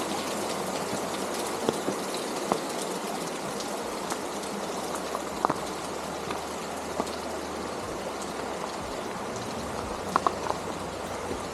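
Shallow cave stream running, a steady rush of water echoing in the cave entrance, with a few short sharp clicks scattered through it.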